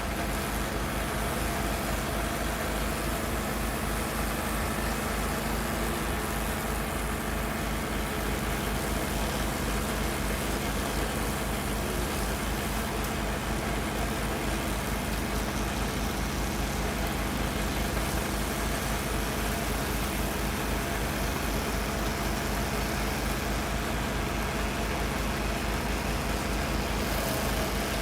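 Kohler Command Pro CH440 single-cylinder engine of a Power King 14 HP stump grinder running steadily at an even speed.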